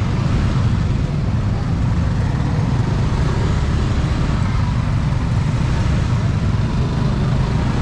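Steady street traffic noise with a strong low rumble.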